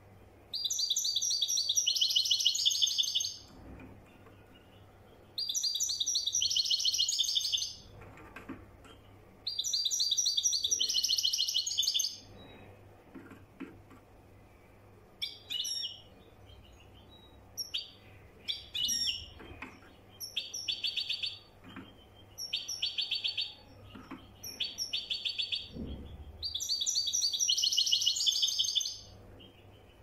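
Caged European goldfinch singing Marrakech-style song: phrases of fast, high twittering. The first three phrases run about three seconds each with pauses between, then come shorter bursts, and there is a long phrase near the end.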